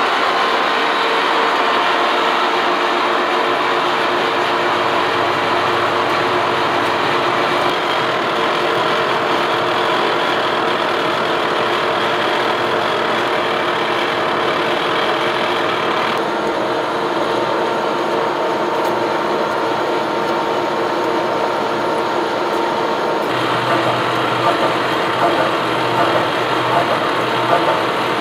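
Lucas horizontal boring mill running with its 8-inch face mill taking a 0.025-inch pass across a metal angle plate: a steady, loud machining noise with a few held tones, growing more uneven toward the end.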